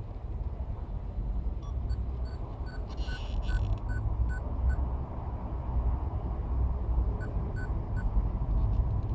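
Steady low rumble with two runs of faint, short high-pitched beeps at about three a second, and a brief hiss about three seconds in.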